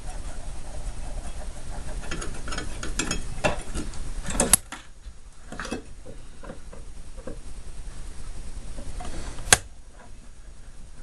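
Hand disassembly of a mini fridge: clicks, rattles and scraping of tools, screws and parts being worked. A low rumble and busy clicking end at a sharp snap about four and a half seconds in. Scattered clicks follow, and a second sharp snap comes near the end.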